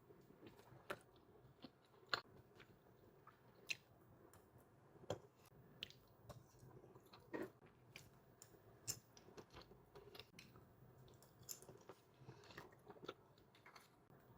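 A person chewing and biting meat close to the microphone: quiet, wet mouth sounds with irregular sharp clicks and smacks, a few of them much louder than the rest.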